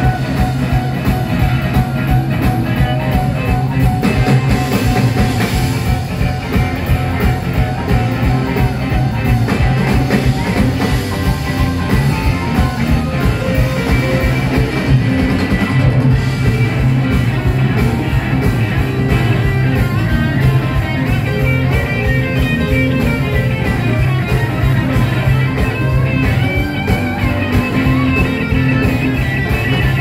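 Live blues-rock band playing an instrumental stretch: electric guitar over bass guitar and a drum kit, loud through the stage PA.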